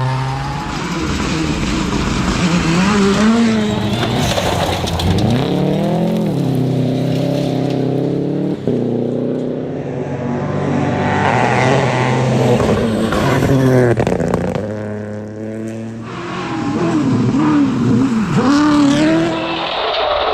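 Rally car engine revving hard, its pitch climbing and dropping again and again as it shifts gears and lifts for corners.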